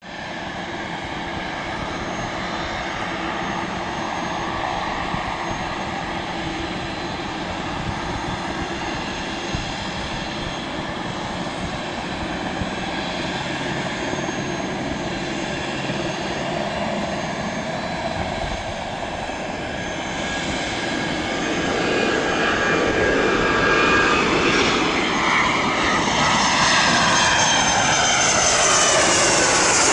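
Gulfstream G200's twin Pratt & Whitney PW306A turbofans whining on final approach, growing louder over the last third as the jet comes close. Near the end the whine drops in pitch as the jet passes by toward touchdown.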